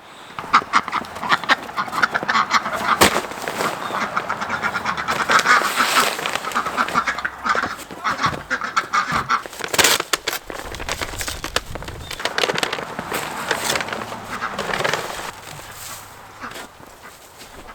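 A flock of domestic ducks quacking, many rapid overlapping calls, thinning out over the last couple of seconds.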